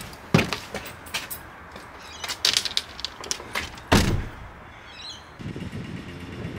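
Car driver's door open and a person climbing out, with clicks and rustles, then the door shut with one loud thump about four seconds in. A low steady background hum follows near the end.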